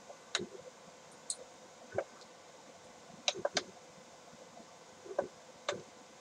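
Faint, irregular clicks and light taps, six or seven of them spread unevenly across a few seconds, over a low steady hiss.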